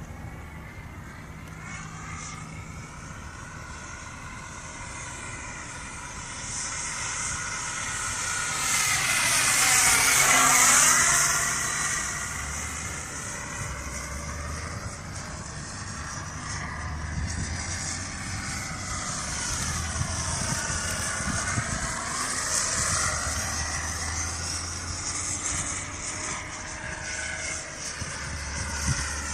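Radio-controlled model Cessna taildragger, converted to a small electric motor, flying with its propeller and motor whining. It comes loudest in a close pass about ten seconds in, then grows fainter and louder again as it circles.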